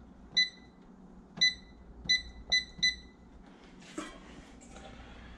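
Digital air fryer's control panel beeping five times as its buttons are pressed to set the cooking time: short high beeps, the last three in quick succession.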